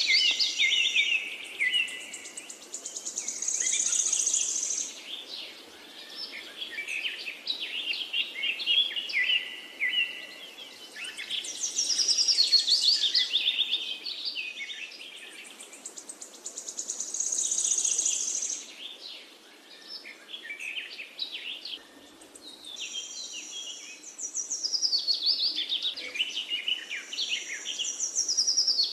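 A flock of house sparrows chirping and chattering in the garden trees. Many calls overlap, swelling and fading in waves every few seconds.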